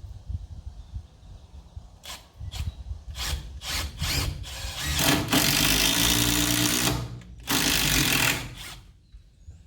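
A power drill driving a 6-1/4-inch ThruLok structural bolt into a wooden barn post. It runs in several short bursts, then in two longer runs of a second or two each.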